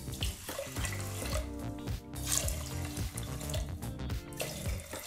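Water poured from a glass bowl into a stainless steel pressure cooker holding rice and moong dal, splashing onto the grains, with soft background music under it.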